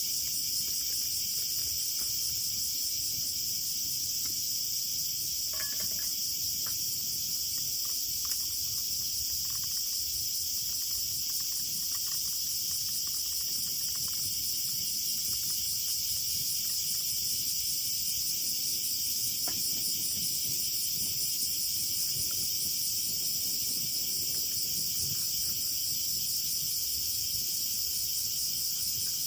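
Steady chorus of insects: a dense, high-pitched trilling that does not let up, with a few faint clicks about six seconds in.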